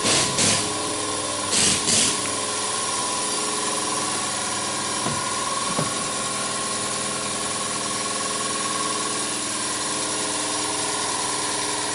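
A motor-driven machine running steadily with a high whine, with a few short loud hissing bursts in the first two seconds.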